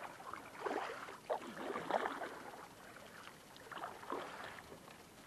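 Kayak paddle strokes, the blade dipping and splashing in calm water about three times.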